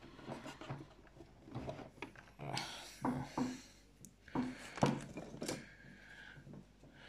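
Hands handling small plastic model parts and tools: scattered light clicks and knocks, with a sharper knock about five seconds in, and brief low muttering.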